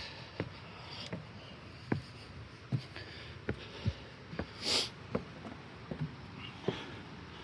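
Footsteps of a hiker walking at a steady pace, a short knock about every 0.8 s. A brief breathy hiss comes about halfway through.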